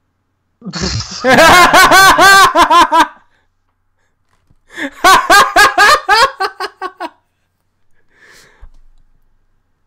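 A person laughing hard in two long, loud bouts of rapid "ha-ha" pulses, the second starting about four and a half seconds in.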